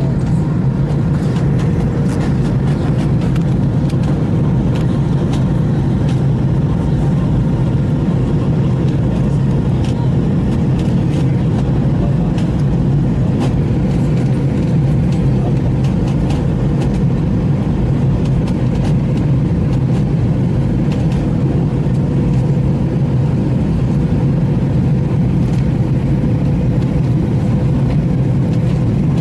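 Steady drone of an airliner's jet engines and rushing air heard inside the passenger cabin during the descent to land, with a faint constant tone running through it.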